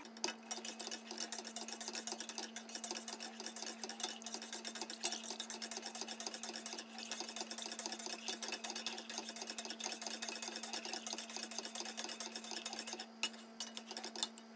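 Plastic spoon-spatula stirring béchamel sauce in a stainless steel pot: a run of quick, soft scrapes and clicks against the pot, over a steady low hum.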